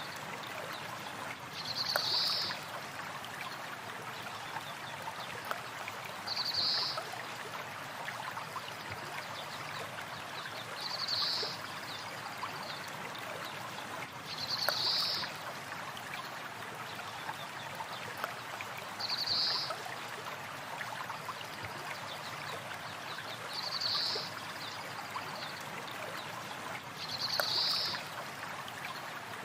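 River water flowing steadily, with a short high call repeating at even spacing about every four and a half seconds.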